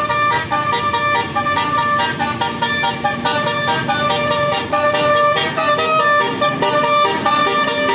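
Telolet 'basuri' bus horn playing a quick melody of short tooting notes at changing pitches, a few held longer.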